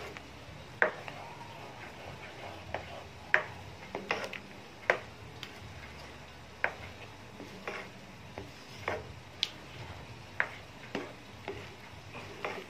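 Spatula stirring thick mashed ube halaya in a pan, knocking and scraping against the pan's sides in irregular sharp clicks about once or twice a second.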